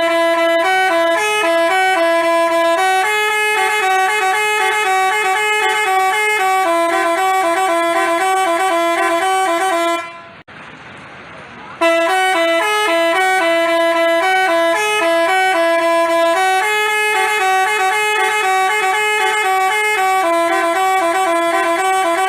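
Basuri multi-tone telolet bus horn playing a melody of held notes that step up and down. The tune plays through once, pauses briefly about ten seconds in, then starts over.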